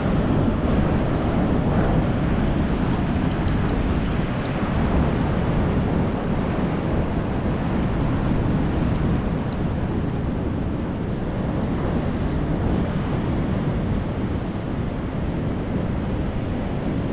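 Steady wind rushing over the microphone, mixed with the wash of ocean surf.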